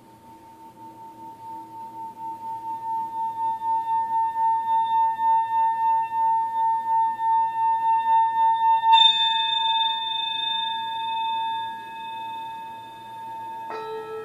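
Tibetan singing bowl played around the rim: one clear tone swells steadily over about nine seconds with a pulsing waver. A strike about nine seconds in adds bright ringing overtones, and near the end a second, lower-pitched bowl is struck and rings.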